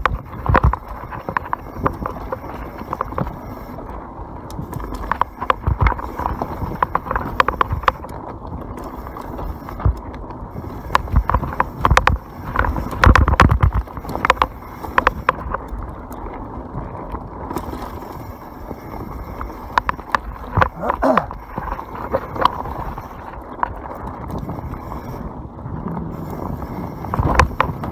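YT Capra full-suspension mountain bike descending a rough dirt trail at speed. The tyres run over dirt and rocks, and the chain and frame rattle and knock over bumps, with a run of heavier knocks about halfway through.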